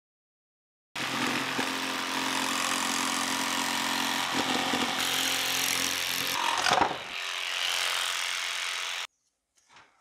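Corded handheld power tool cutting through a washing machine's plastic outer tub. It starts about a second in and runs steadily under load, with a brief sweep in pitch about seven seconds in. It stops abruptly about a second before the end.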